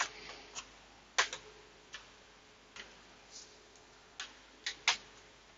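Plastic snap-clips of a laptop's case clicking as the case is prised apart with a spudger: a string of sharp, irregular clicks, the loudest about a second in and two more near the end.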